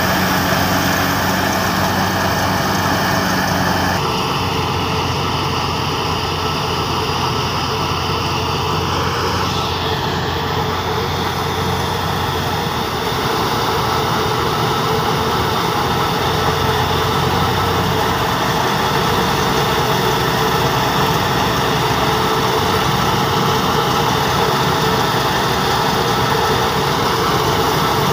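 Tractor-driven wheat thresher running steadily: the tractor's engine and the spinning thresher make a continuous loud mechanical noise while straw is fed in. The tone shifts slightly a few times, and a low hum drops out a little over halfway through.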